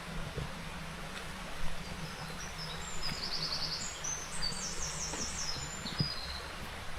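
A small songbird sings a fast, high trilled phrase of rapidly repeated notes from about two and a half seconds in, lasting about three seconds, over a steady low background hum and a few faint knocks.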